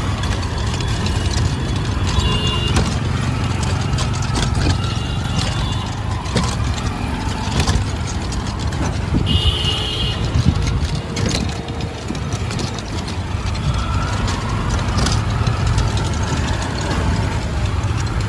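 Busy street traffic of auto-rickshaws and other vehicles with engines running, a steady rumble, broken by three short horn beeps, the clearest a little past halfway.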